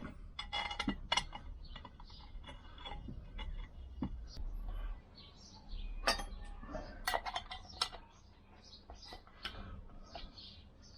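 Light, irregular metallic clicks and clinks of steel nuts and a spanner being handled as two nuts are run onto a scooter hub stud to double-nut it.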